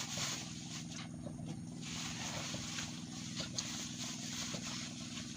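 Steady hum of a small engine running, with scattered faint ticks over a hiss.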